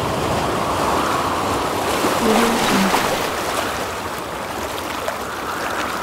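Sea waves washing on a shore with wind: a steady rushing hiss that swells about a second in and again near the end.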